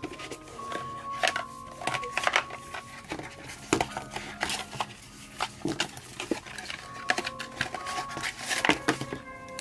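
Cardboard packaging being handled: card inserts and a box lid lifted, slid and set down, giving repeated rustles, scrapes and light taps. Faint background music underneath.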